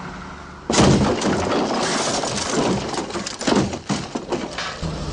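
A sudden loud crash about a second in, followed by several seconds of breaking glass and clattering impacts.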